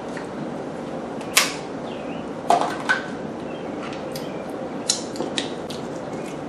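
Cooked lobster shell being cracked and pulled apart by hand: a handful of short, sharp cracks and clicks, the loudest about a second and a half in, over a steady background hiss.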